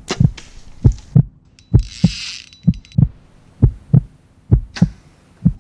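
Repeated dull low thumps, roughly two a second and often in pairs, with a brief hiss about two seconds in.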